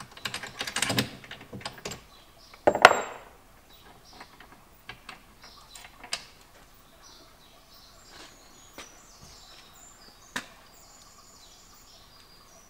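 Metal clicks and clatter of a hand-worked brake-pipe flaring tool in a bench vice being set up, with one loud clank about three seconds in, then a few scattered ticks.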